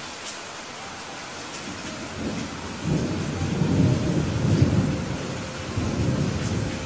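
Steady heavy rain with a deep rumble of thunder that builds about two seconds in, rolls loudest in the middle and fades near the end.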